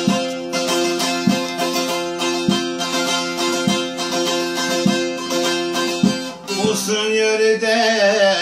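Bağlama (long-necked Turkish saz) strummed and picked in an instrumental passage, with ringing drone strings and a heavy stroke about every second and a quarter. Near the end a man's voice begins singing over it.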